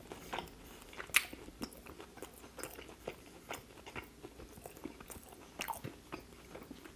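A person chewing a mouthful of food close to the microphone, with many small mouth clicks and one sharper click about a second in.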